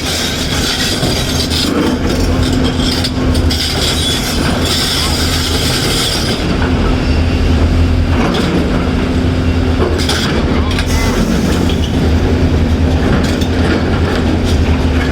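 A Caterpillar excavator's diesel engine running steadily under load, with a few short knocks and clatter from the machine working rock.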